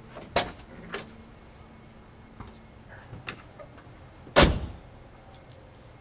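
Crickets chirring steadily, with a few light clicks and one loud sharp knock about four and a half seconds in.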